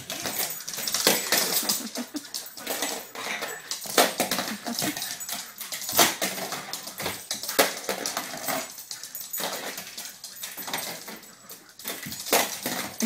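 A dog playing with a toy car: repeated sharp knocks and clatters of the toy hitting the floor as it is tossed about, with dog sounds in between.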